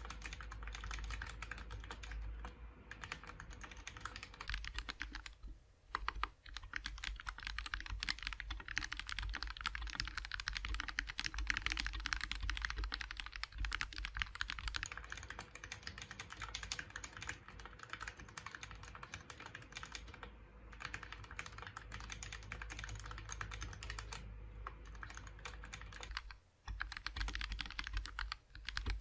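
Fast, continuous typing on a GK64 mechanical keyboard with lubed Gateron Red linear switches. There are brief pauses about six seconds in and again near the end.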